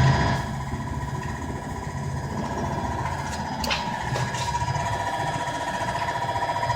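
Screen-print conveyor curing dryer running: a steady mechanical hum with a high whine, a few sharp clicks about halfway through, and a fast even rattle pulsing through the second half.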